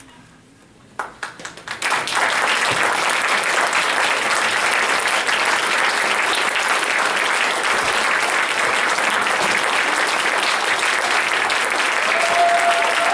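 Audience applause: a few scattered claps about a second in, swelling within a second into steady, sustained clapping from a room full of people.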